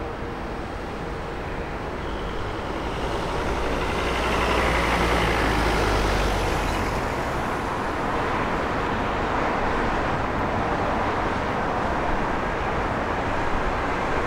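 Jet engines of a British Airways Boeing 777 on final approach, a steady rumbling roar mixed with road traffic nearby. The sound swells about four seconds in, then holds steady.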